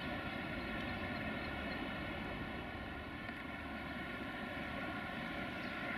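Steady machine hum at a railway station: a constant low rumble with several unchanging tones over it, as from standing trains' electrical and cooling equipment.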